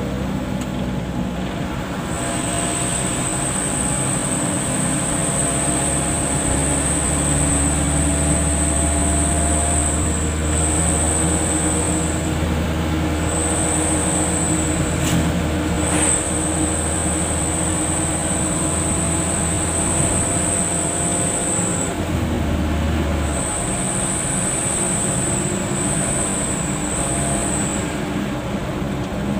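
Steady drone of a car's engine and tyres heard inside the cabin while driving, with a thin high-pitched whine that comes and goes throughout. The deepest part of the drone drops away near the end.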